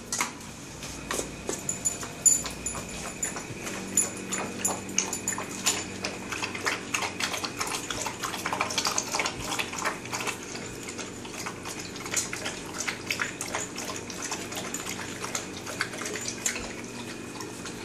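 Dogs eating and drinking from metal bowls: a steady run of quick, irregular clicks, crunches and laps.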